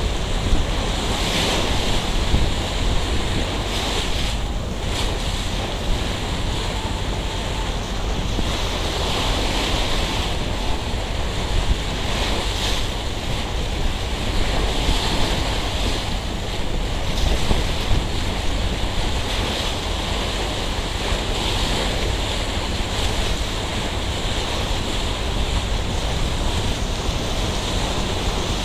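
Wind buffeting the microphone over the rush of sea water along a moving boat, steady throughout.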